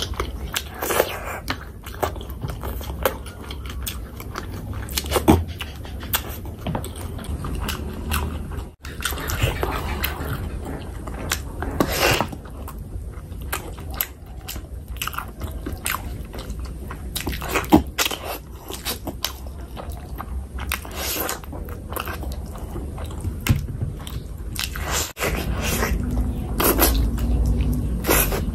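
Close-miked eating of fish curry with rice by hand: chewing and wet mouth sounds, with many short sharp clicks.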